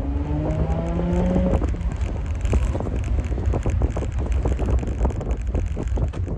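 Infiniti G35's VQ35DE V6 engine, heard from inside the cabin, rising in pitch as the car accelerates for about a second and a half, then a steady low rumble of engine and road noise.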